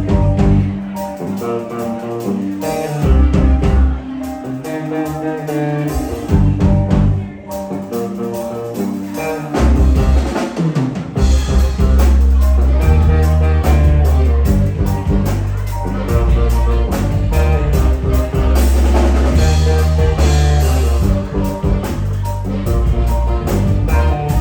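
Live band playing an instrumental passage on drum kit, bass, guitar and keyboards. The band plays stop-start hits with short gaps for about the first ten seconds, then settles into continuous playing with a steady bass line.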